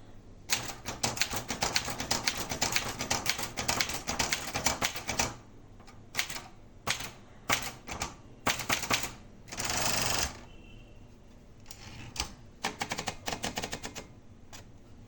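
Marathon 880 DLX typewriter being typed on. A fast, even run of key strikes is followed by slower scattered strikes, a half-second rasping sweep a little past halfway, then another quick run of strikes.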